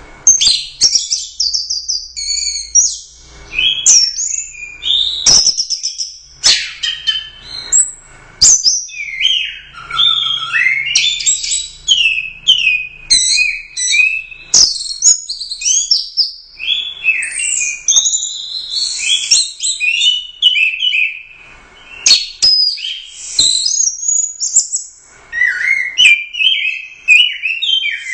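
Orange-headed thrush (anis merah) singing continuously: a rich, fast-changing song of high whistled and warbled phrases with short gaps, broken by a few sharp clicks.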